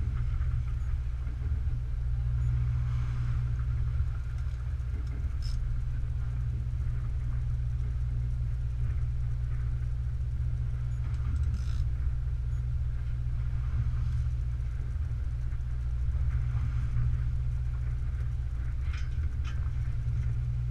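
Fishing boat's engine running steadily, a constant low rumble.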